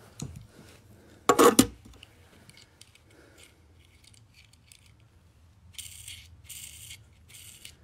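Small die-cast toy cars clinking and rattling as they are handled, in a string of short clatters near the end. A brief loud sound comes about a second and a half in.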